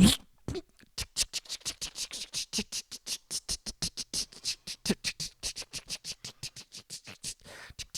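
Printer sound effect: a short burst, then a long run of rapid, even clicking, about six clicks a second, like a receipt printer printing out a slip.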